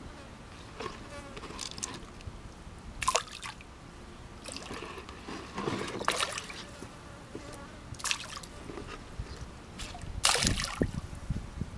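Catfish splashing at the water's surface as they take thrown food, with about four separate sudden splashes over a faint background.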